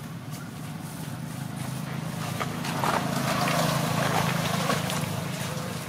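A motor engine hums steadily, growing louder about halfway through and easing off near the end, like a vehicle passing.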